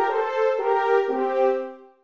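Two natural horns playing a duet in harmony, held notes changing about every half second, the phrase dying away near the end.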